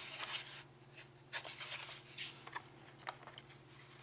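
Light rubbing and small scattered clicks of a plastic phone case and its clear plastic packaging tray being handled, over a faint steady hum.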